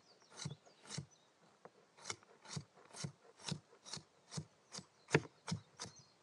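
Kitchen knife dicing a red onion on a cutting board: a steady run of quick knife strokes, about two a second, each ending in a tap on the board, with a short pause about a second in.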